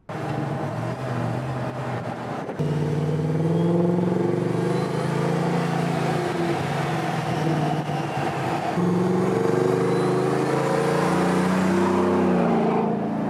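Supercharged V8 of a 2020 Harley-Davidson F-150 pickup pulling under throttle, its exhaust note rising and falling in pitch as it revs. The sound steps up abruptly about two and a half seconds in.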